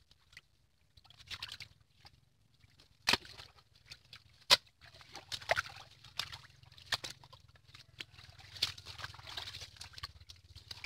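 Irregular splashing and sloshing of shallow water, with two sharp knocks about three and four and a half seconds in.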